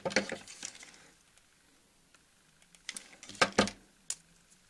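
Handling noise from hands working craft materials on a wooden tabletop: short clicks and knocks in two clusters, one at the start and one about three and a half seconds in.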